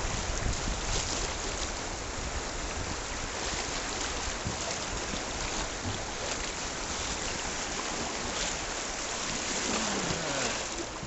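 River water rushing and splashing around a kayak running rough water, a steady wash with scattered brief splashes.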